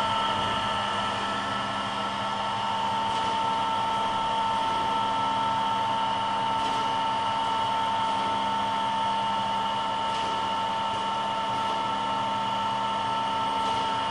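Automatic double-sided lock-shell drilling machine running: a steady hum and whine from its electric drill motors, with a faint click about every three and a half seconds.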